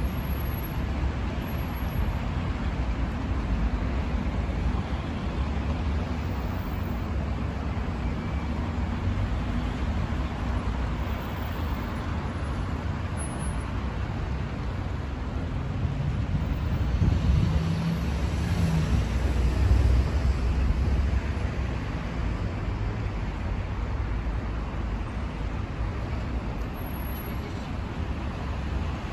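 Steady city road traffic, cars and buses driving around a roundabout with continuous tyre and engine noise. About two-thirds of the way through it swells for a few seconds with a steady engine hum as a heavier vehicle passes.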